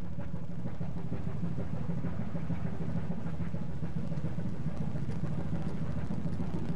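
Ship's engine running steadily, a low even drone with a constant hum.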